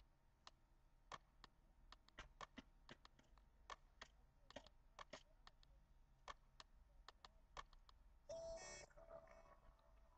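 Faint, irregular clicks and taps, a few a second, from hands and fingers striking each other while signing. A brief pitched sound comes about eight seconds in.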